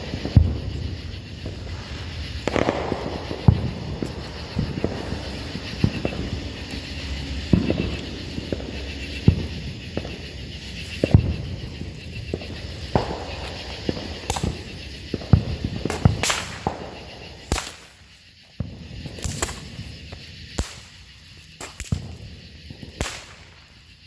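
Small consumer fireworks going off: a long run of irregular sharp pops and bangs over a steady crackle, thinning out to a few single loud cracks near the end.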